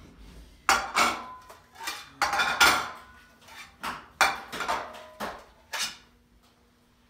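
Plates clattering and clinking as they are set down one by one on a dining table, about ten sharp knocks, the loudest about two and a half seconds in, stopping about six seconds in.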